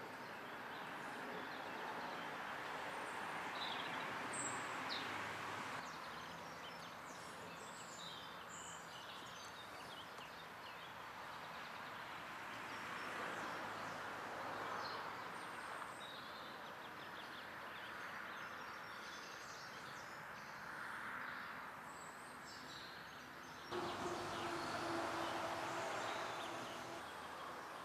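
Steady outdoor background noise with scattered short bird chirps. About 24 seconds in, a louder steady hum with a low tone starts.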